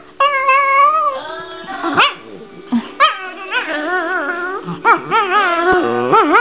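Dog making whining, warbling play noises. A long whine bends upward near the start, then a run of calls wavers up and down in pitch, broken by a few short yips.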